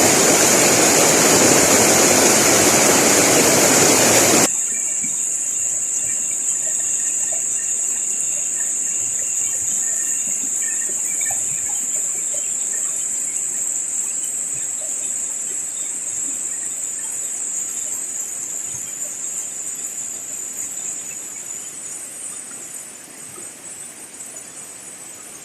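Loud rush of water for about the first four and a half seconds, cutting off suddenly to the muffled sound of river current heard underwater, with a steady high hiss that slowly fades.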